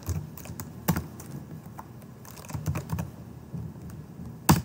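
Typing on a computer keyboard: scattered, irregular key clicks, with one much louder click near the end.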